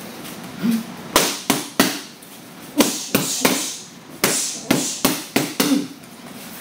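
Boxing gloves punching focus mitts in a fast multi-punch combination: about a dozen sharp smacks in quick clusters of two or three, starting about a second in.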